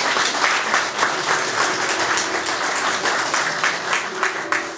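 Small audience clapping in a room, dense applause that thins into scattered separate claps and fades near the end.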